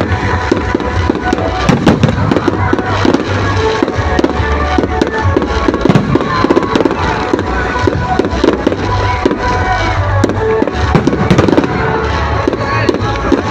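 Fireworks display: aerial shells bursting in a dense run of bangs and crackles, over loud music with a heavy bass beat.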